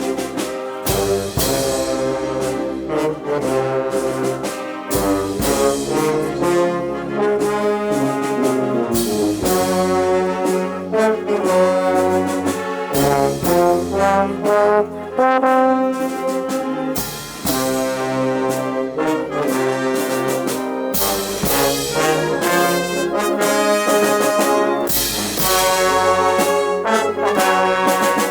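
Azorean filarmónica wind band playing a processional march, the brass section carrying the tune.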